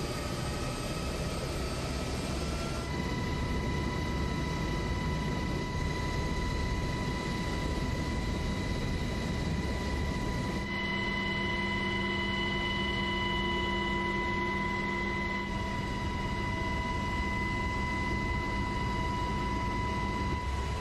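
Twin-turbine engines of a Black Hawk military helicopter running on the ground: a steady high whine over a low rumble.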